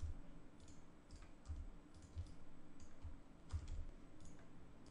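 Scattered faint clicks and taps of a computer keyboard and mouse as shortcut keys and buttons are pressed.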